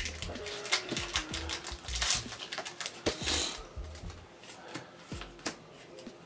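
Pokémon trading cards being flicked through and handled: a quick run of light clicks and snaps of card stock, busiest in the first three seconds or so, with a brief rustle about three seconds in.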